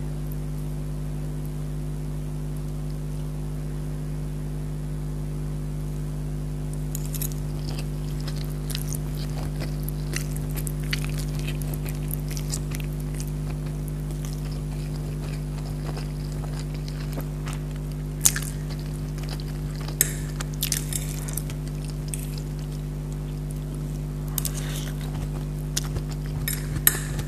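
Close-miked eating sounds of pad Thai noodles and chicken curry: chewing and wet mouth clicks starting about seven seconds in, with a few sharp clinks of a fork against a plate, over a steady low hum.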